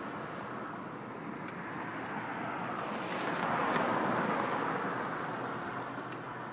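Road traffic: a vehicle passes close by, its tyre and engine noise swelling to a peak about halfway through and then fading. A few faint clicks sound in the first half.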